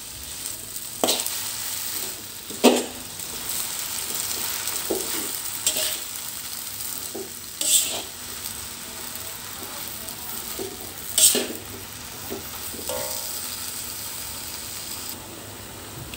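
Bayam (spinach) greens stir-frying in a metal wok: a steady sizzle, with the perforated metal spatula scraping and knocking against the wok every few seconds.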